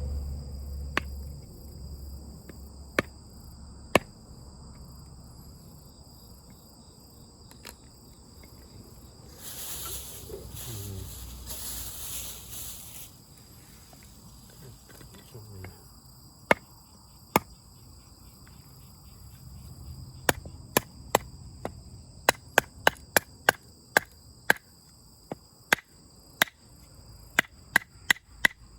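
Sharp wooden knocks, a few spaced out at first, then a quick run of about two a second near the end, like chopping or splitting firewood. Insects trill steadily in the background, and there is a burst of rustling partway through.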